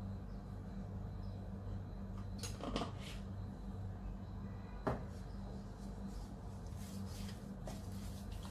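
Spoon or spatula stirring chicken pieces in a pan, with a few sharp knocks and scrapes against the pan about three and five seconds in and again near the end, over a steady low hum.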